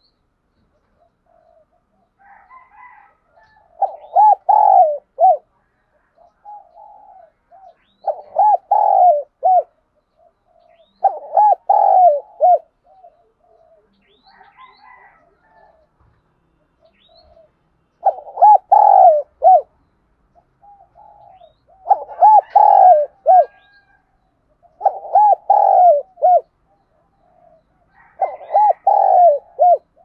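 Spotted dove cooing: seven loud phrases, each a quick run of several short coos, repeating about every three to four seconds, with softer calls between them.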